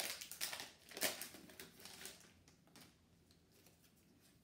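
Foil Pokémon booster pack being torn and crinkled open, a flurry of crisp rustles over the first two seconds, then only faint scattered rustles.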